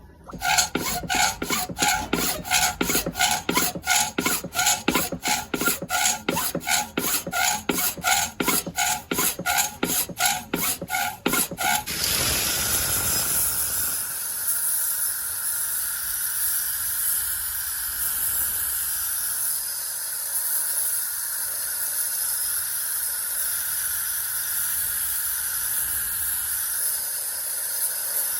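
Hand filing or sanding of a rusty pocket knife, rapid even back-and-forth strokes, about three a second, with a scraping ring. About twelve seconds in the strokes stop and a steady hissing whir takes over.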